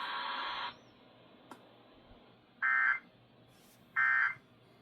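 NOAA Weather Radio warning alarm tone, a steady, slightly distorted tone heard over a radio receiver, cutting off under a second in. After a pause, two short electronic beeps follow about 1.4 seconds apart, the alert beeping of a receiving device.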